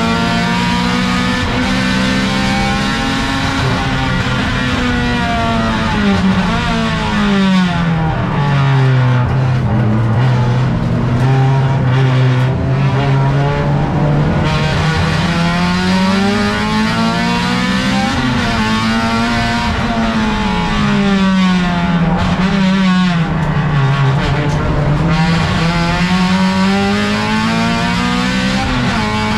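Racing car's engine heard from inside the stripped cabin at race pace, revs climbing and falling with gear changes. The revs drop low for a few seconds about a third of the way in and again near the end before pulling back up, over a constant rush of road and wind noise.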